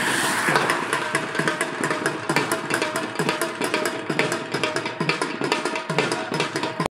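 Dhol drum beaten in a fast, even run of strokes: the sehri drummer's Ramadan wake-up call for the pre-dawn meal. The drumming cuts off suddenly near the end.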